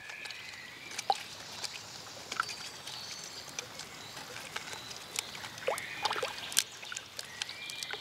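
Eurasian beaver gnawing and chewing on a branch at the water's surface: scattered crunching clicks over soft water sloshing and dribbling, with the sharpest clicks about a second in and again near the end.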